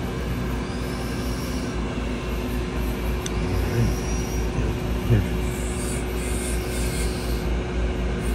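A steady low rumble with a constant hum, like a small machine running.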